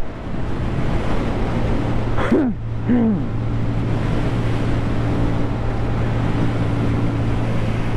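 Yamaha motorcycle engine holding a steady hum while cruising at highway speed, with wind rushing over the helmet microphone. About two seconds in there is a brief sound that bends in pitch.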